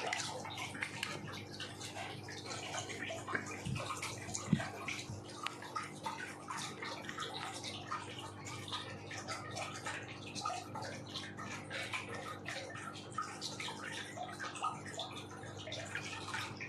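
Small 7-watt AC submersible aquarium pump running and pouring out fine air bubbles: a constant fizzing, crackling bubble-and-water noise over a steady low hum.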